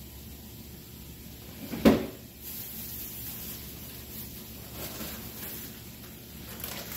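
Food being moved about inside an open refrigerator: one sharp clunk about two seconds in, then softer shuffling and rustling of packages.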